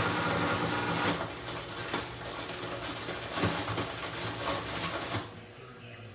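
Washing machine running noisily, a steady low hum with irregular rattling and knocking. The noise cuts off suddenly about five seconds in, leaving a quieter hum.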